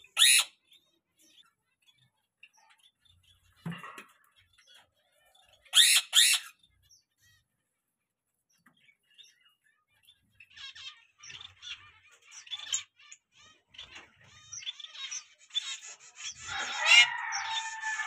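Small aviary finches chirping, zebra finches among them: a few loud short sounds in the first six seconds, then scattered chirps from about ten seconds in that build into dense chirping, with one louder, longer call sliding down in pitch near the end.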